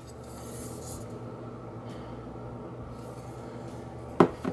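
A stainless steel bowl of cut strawberries is set down on a kitchen countertop: a sharp clunk near the end, with a smaller knock just after. Under it runs a steady background hum.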